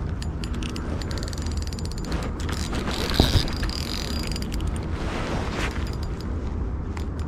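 Spinning reel being cranked, its gears giving off runs of fast, fine ticking, over a steady low rumble. There is a sharper knock about three seconds in.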